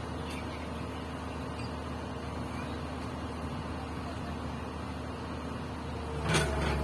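Diesel engine of a Komatsu PC200 hydraulic excavator running steadily, with a sharp knock and a short ring near the end.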